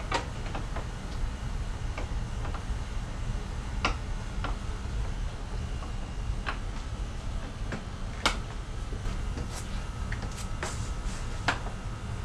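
Scattered sharp clicks and knocks of hard plastic as the bumper cover and aftermarket grille are handled and screws are set in place by hand, coming irregularly about once a second, over a steady low hum.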